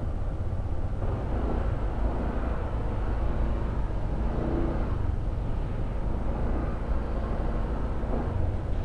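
Honda ADV 160 scooter's single-cylinder engine running steadily while riding, under a heavy low rumble of wind and road noise.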